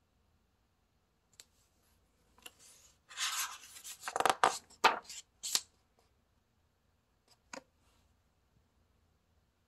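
A picture book's paper page being turned by hand: a few light clicks, then about two and a half seconds of paper rustling and sliding with several sharp crackles, and a faint tap or two near the end.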